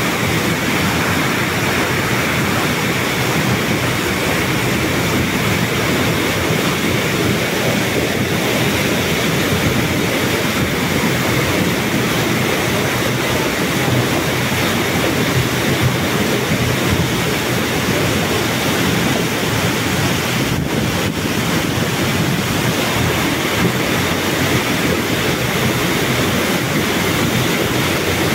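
Fast, muddy floodwater rushing through a narrow street in a steady, loud torrent that never lets up.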